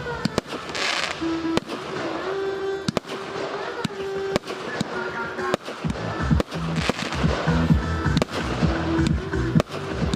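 Fireworks display: shells and firecrackers going off in many sharp bangs, several a second, over a music soundtrack whose heavy bass beat comes in about six seconds in.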